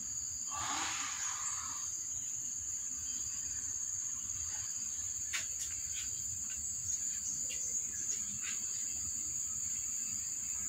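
Steady high-pitched insect trill, like crickets, with a brief rustle about a second in and a few faint light clicks later on.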